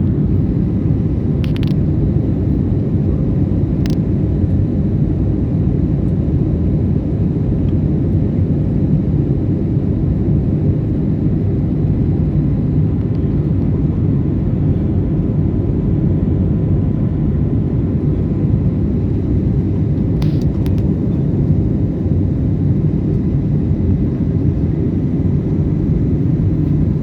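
Steady low rumble of a jet airliner climbing after takeoff, engine and airflow noise heard from inside the cabin. A few faint clicks sound over it.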